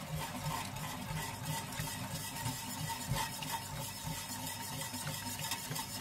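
Faint scraping of a spoon stirring a flour-and-stock brown sauce in a cooking pot, over a low steady hum.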